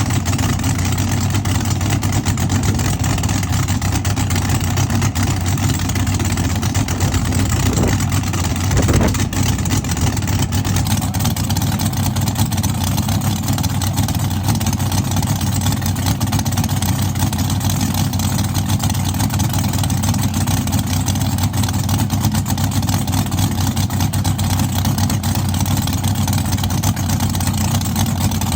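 Drag car's engine running at a loud, steady idle, with a brief rise in pitch about eight seconds in.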